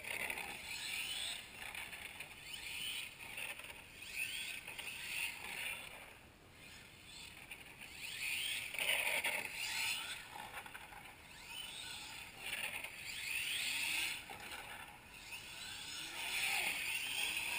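Radio-controlled car's motor whining as it drives around on tarmac, its pitch rising and falling in repeated surges as the throttle is worked.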